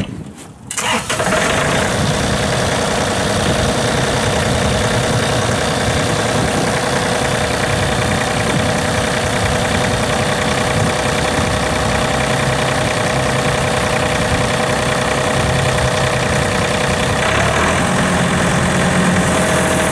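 2008 John Deere 3720 compact tractor's Yanmar diesel engine starting about a second in, then idling steadily.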